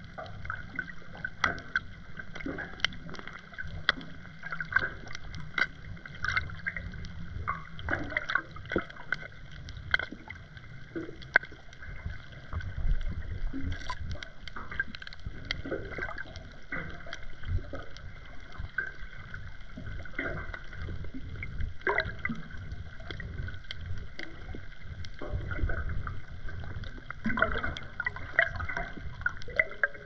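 Underwater ambience heard through a GoPro Hero 10 submerged in the sea: a low rumble of moving water with frequent, irregular sharp clicks and crackles.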